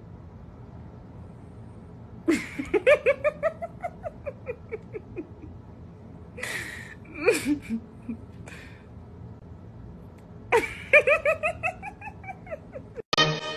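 High-pitched laughter in two long runs of quick pulses, each starting with a breath in and rising then falling in pitch, with a shorter squeal between them.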